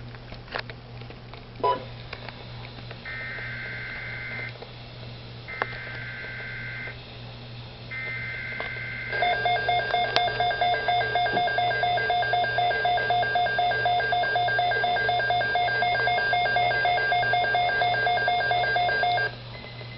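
Weather radio receiver sounding an emergency alert: three short bursts of buzzy digital alert-header data, then a pulsing alarm tone for about ten seconds that cuts off suddenly, over a steady low hum.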